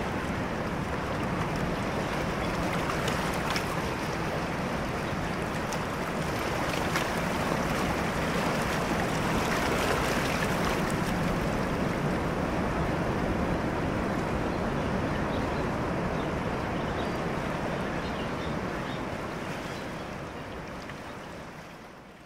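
Steady wash of surf and wind at the water's edge, fading out over the last few seconds.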